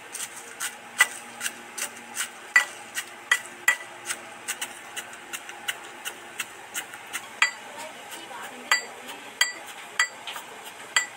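Brass mortar and pestle (hamandista) pounding whole dried red chillies and panch phoron: repeated knocks at about two to three a second, each with a short metallic ring. The spices are being crushed only half-way, to a coarse grind.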